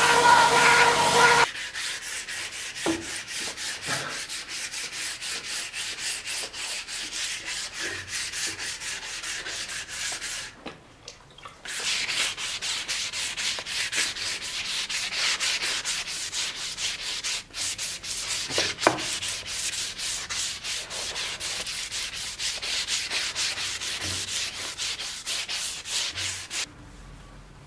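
A belt grinder runs for about a second and a half, then cuts off. It gives way to a wooden scabbard being sanded by hand in quick back-and-forth strokes, its surface wet. The strokes pause briefly about eleven seconds in and stop just before the end.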